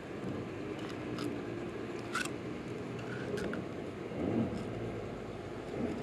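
Light metallic clicks and scrapes of fishing pliers working a hook out of a bullhead catfish's mouth: a few sharp ticks spread over several seconds, over a steady low background hum.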